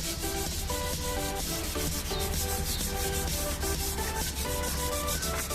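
Rapid, steady hand rubbing or scraping strokes on a part of the engine, with background music playing underneath.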